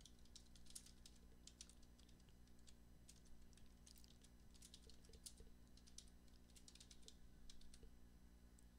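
Faint typing on a computer keyboard: a run of irregular key clicks as a short line of text is typed.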